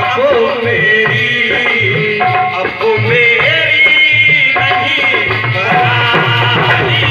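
A man singing a ghazal in a wavering, ornamented melodic line, with harmonium and a steady hand-drum rhythm accompanying him.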